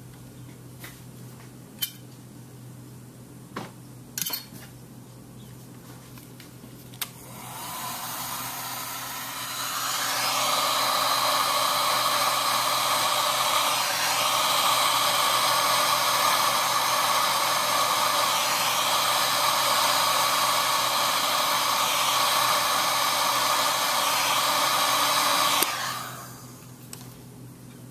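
Heat gun from a Harbor Freight plastic welding kit switched on about seven seconds in, rising in two steps to a steady blowing hiss with a fan tone, then cut off near the end. It is pre-heating the kayak hatch lid's plastic for welding. A few faint clicks come before it starts.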